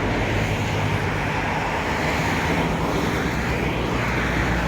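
Road traffic: cars driving past, a steady rumble of engines and tyre noise.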